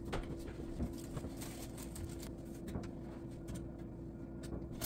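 Quiet kitchen with a steady low hum and a few faint, light taps and knocks from hands handling food and a paper towel on the counter.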